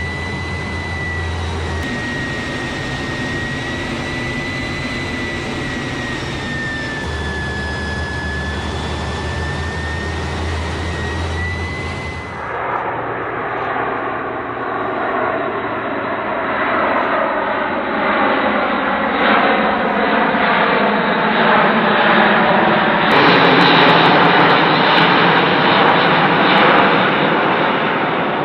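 Airbus A400M turboprop engines running: first a steady high-pitched whine. After an abrupt change about 12 seconds in, louder engine noise with tones sliding in pitch, growing loudest after another cut near the end.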